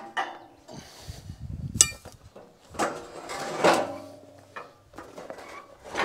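Steel sawmill track and frame parts knocking and clanking as they are handled: a series of separate metal knocks, some leaving a brief ringing tone.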